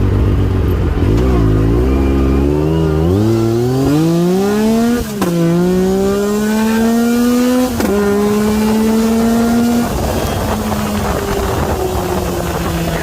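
Four-wheeler (ATV) engine pulling away from a low idle and accelerating, its pitch climbing, with two upshifts about five and eight seconds in where the pitch drops and climbs again; it holds steady, then backs off near the end.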